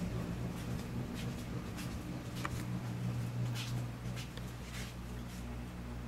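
Fire alarm strobe lights firing, each flash a faint tick, at an uneven pace over a steady low electrical hum.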